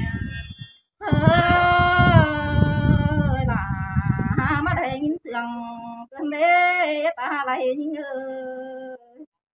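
A woman singing a slow, unaccompanied traditional folk song in several phrases, long held notes sliding up and down with short breaks between them. A low rumble lies under the first half.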